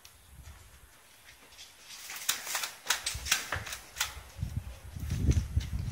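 Footsteps and equipment knocking as an airsoft player moves, starting about two seconds in as an uneven string of sharp clicks and knocks, with low rumbling handling noise growing near the end.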